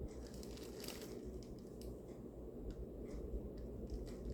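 Faint clicks and light rustling of something being opened and handled by hand, with a small cluster of clicks about a second in.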